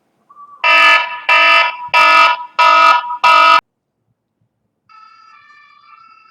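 Emergency-alert-style electronic alarm tone beeping five times, about three beeps every two seconds, each beep a harsh stack of pitches. A much fainter steady electronic tone begins near the end.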